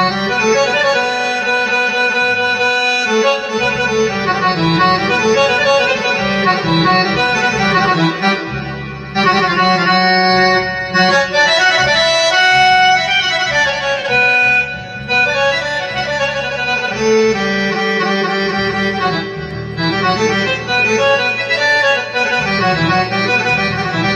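Electronic keyboard playing a melody on its harmonium voice, reedy sustained notes with a lower part underneath.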